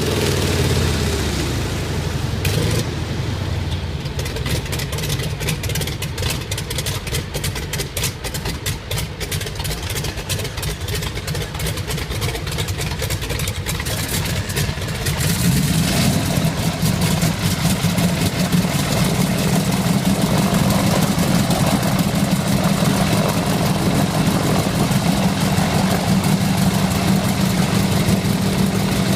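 Rolls-Royce Merlin V12 aero engine running roughly with a rapid, irregular crackle of exhaust firing. About halfway through it steadies into a louder, even run.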